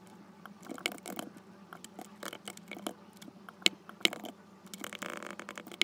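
Computer keyboard being typed on: a run of irregular key clicks, a few a second, as code is entered and edited.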